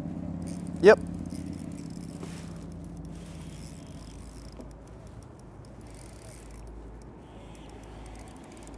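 A steady low mechanical hum, loudest at the start and slowly fading, with faint irregular ticking from a spinning reel being wound in.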